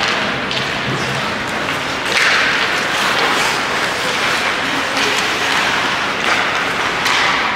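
Ice hockey rink crowd noise: a steady din of applause and voices that swells about two seconds in, with a few sharp knocks.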